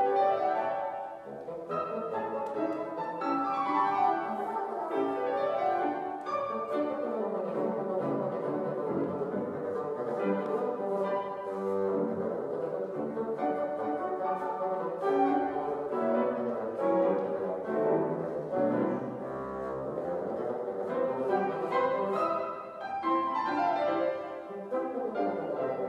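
Bassoon and grand piano playing a classical piece together, with busy, fast-moving notes and quick runs up and down near the end.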